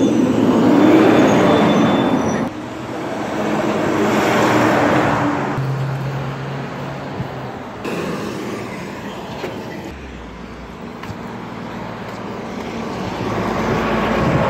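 City street traffic: trucks and cars passing close by, the noise swelling and fading as they go. The sound changes abruptly several times.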